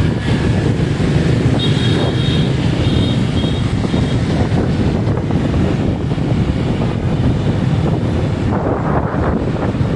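Strong wind buffeting the microphone in a steady low rumble, with a brief stronger rush near the end.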